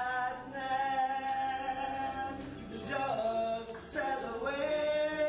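A man singing unaccompanied, holding one long note for nearly three seconds and then moving to lower notes.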